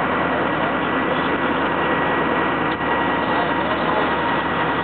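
Fire apparatus engine running steadily with a thin steady whine over it, and a short click about halfway through.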